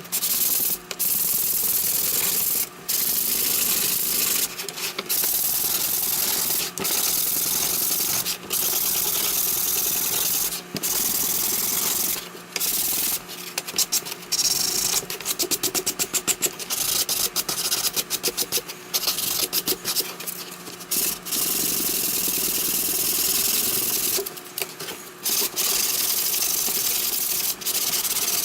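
Sandpaper on a sanding block rubbed over the leading edge of a wooden boomerang, rounding the edge over: long runs of steady scratching strokes broken by short pauses, with a stretch of quicker, choppier strokes midway.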